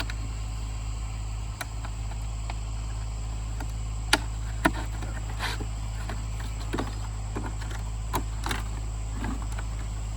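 Potatoes knocking into a bucket a handful of times, two of them sharp and loud about four seconds in, over the steady low drone of a running engine.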